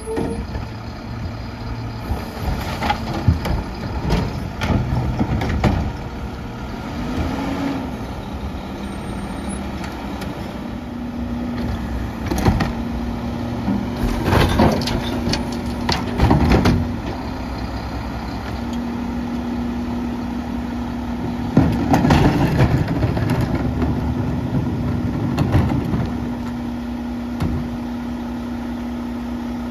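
Mack LEU garbage truck's diesel engine running while the Curotto-Can arm works, with a steady hydraulic whine for long stretches. Loud bangs and clatters about halfway through, as a wheeled cart is tipped over the cab and shaken out into the hopper, and more knocks some seconds later as the arm brings the cart back down.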